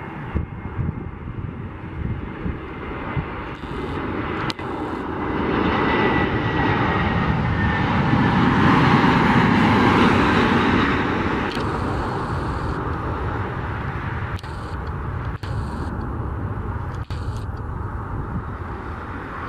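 Spirit Airlines Airbus A320-family airliner on final approach, its jet engines swelling to a peak about halfway through as it passes close, then easing off. A faint high whine falls slowly in pitch as the jet approaches.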